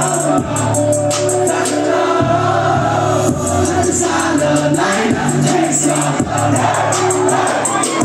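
A song performed live: voices singing over music with a steady beat and sustained bass notes.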